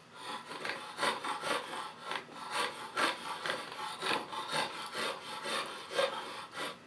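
Draw knife shaving the belly of a laminated hickory-and-bamboo bow stave in short scraping strokes, about two or three a second, thinning the wood down toward the layout lines.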